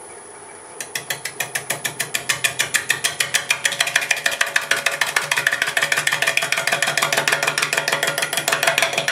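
A bowl gouge taking an interrupted roughing cut on an out-of-round half log of green apple wood spinning on a wood lathe at about 400 RPM. From about a second in there is a rapid, even train of knocks, about six or seven a second, as the high spots of the log strike the tool once each turn. The lathe hums steadily underneath.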